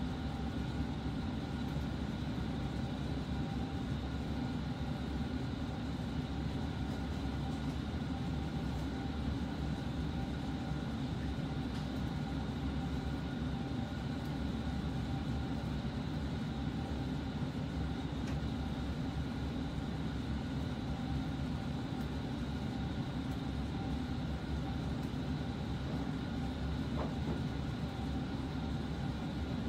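Steady low rumble and hum with a few faint steady whining tones above it, unchanging throughout.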